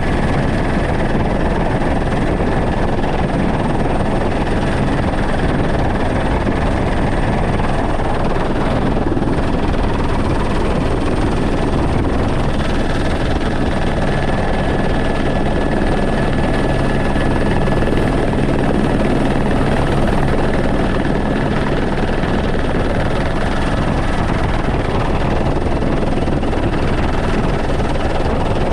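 Helicopter in flight heard from inside its cabin: steady rotor and engine noise with a thin, steady whine above it.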